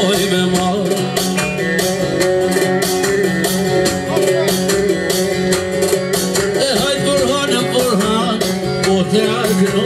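Amplified live band music with a steady beat and a man singing into a microphone.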